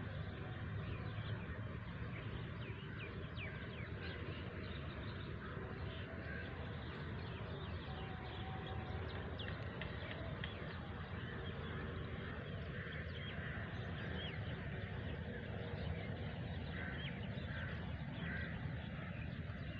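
Crows cawing now and then, several calls in quick succession near the end, over a steady low rumble.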